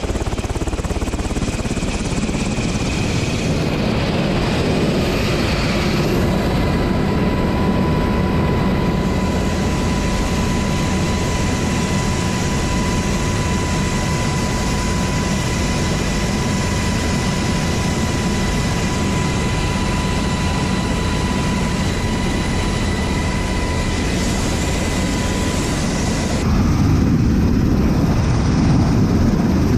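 UH-60 Black Hawk helicopter's twin turboshaft engines and main rotor running steadily, a dense rotor and engine noise with a steady high whine over it. It gets louder near the end, heard from the open cabin door.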